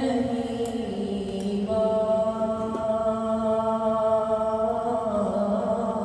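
A solo male voice chanting a naat without accompaniment, holding long, steady notes. The pitch steps to a new note about a second in, again just before two seconds, and once more near the end.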